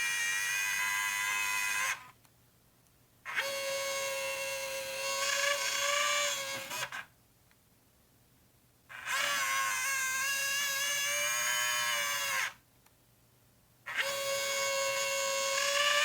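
Nikon P900 camera's motorised mechanism running in repeated runs of a few seconds, each a steady whining grind that bends slightly in pitch as it starts and stops, with short silent pauses between. This grinding noise is a fault the camera has newly developed.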